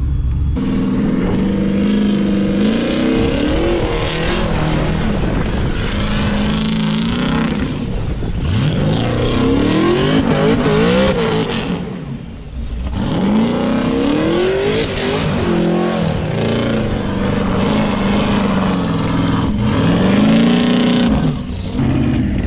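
Twin-turbo LS V8 of a four-wheel-drive Cadillac Escalade revving hard again and again as it slides its wheels around in snow. The engine note sweeps upward several times over a steady rush of spinning tyres.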